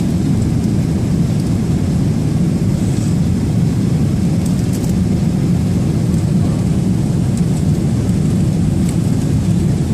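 Cabin noise of a Boeing 777-300ER in flight, heard from a window seat over the wing: a steady low rumble of engines and rushing air. It stays even throughout, on the descent towards landing.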